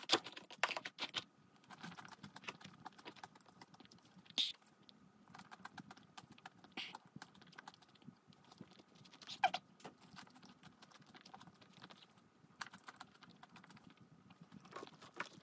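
Close eating sounds: chewing and small mouth clicks, with light clicking taps throughout and two sharper clicks in the middle.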